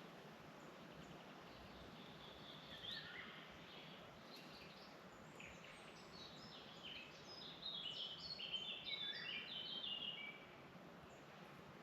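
Several songbirds singing in a summer forest over a steady soft hiss of background noise, with a quick run of short high notes loudest from about eight to ten seconds in.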